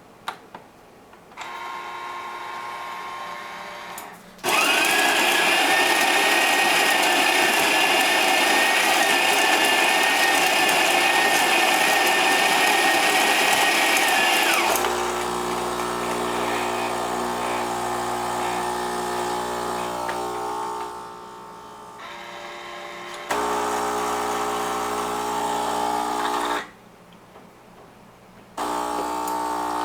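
Household kitchen appliance motors running one after another, each for several seconds. The loudest is an electric motor with a steady high whine and a noisy grinding rush, lasting about ten seconds. A lower, steadier electric hum follows, stopping and starting twice.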